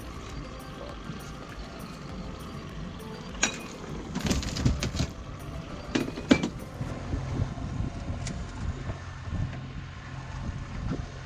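A few sharp knocks and clatters, the loudest about six seconds in, as a fish is worked in a landing net on an aluminum boat's floor, over a steady low rumble.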